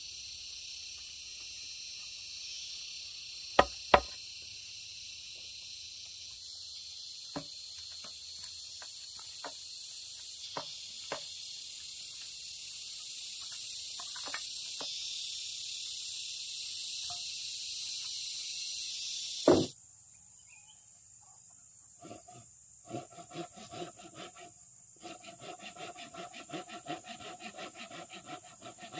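Loud chorus of insects, most likely cicadas, in forest undergrowth, with sharp knocks now and then from a stick packing soil around a bamboo post. A little over two-thirds of the way in the chorus cuts off, leaving a quieter steady high insect note and rapid light tapping from a blade working bamboo.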